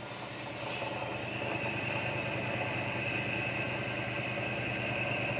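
Automatic industrial coconut grinder running steadily: a constant high whine over a low motor hum.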